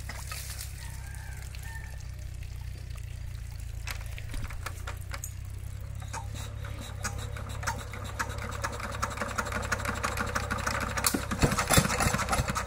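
16 hp single-cylinder horizontal diesel engine running steadily while driving a water pump, getting louder with more clatter in the last few seconds.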